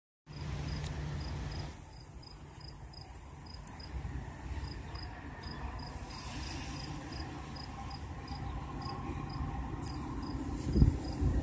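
Crickets chirping steadily, about four high chirps a second, over a low rumble. The rumble grows heavier near the end as an approaching train draws closer.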